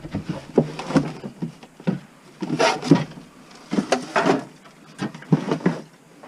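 Irregular knocks, clunks and rustles of objects being handled and moved around, about a dozen separate strikes with louder clusters near the third and fourth seconds.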